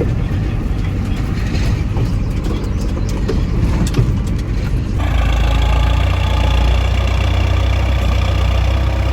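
Vehicle engine running while driving, with scattered knocks and rattles. About five seconds in, the sound switches abruptly to a louder, steady engine drone with a low hum and a high whine.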